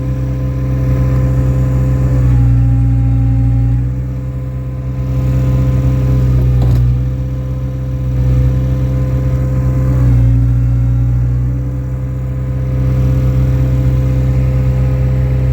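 Skid steer loader's engine running steadily under load, its loudness rising and falling a few times as the bucket is worked under a large rock, with one short knock about seven seconds in.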